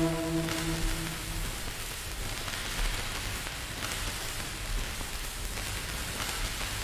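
Electronic music outro: a held synth chord with a pulsing low note stops about a second and a half in, leaving a steady static-like hiss.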